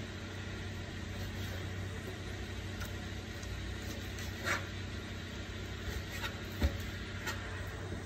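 Chef's knife cutting raw chicken on a plastic cutting board: a few soft knocks and scrapes of the blade on the board, the sharpest knock about two-thirds of the way through. A steady low hum lies underneath.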